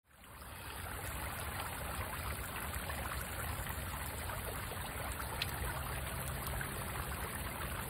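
Water trickling and splashing steadily in an ice-covered tiered garden fountain, fading in at the start.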